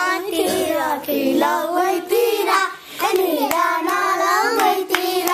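A child singing a song, in sung phrases with short breaks between them.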